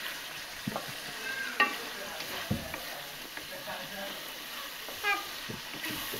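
Meat frying with spices in a wok, sizzling steadily while a spatula stirs it, with several scrapes and knocks of the spatula against the pan. The meat is being kosha-fried in masala, the first stage of a biryani.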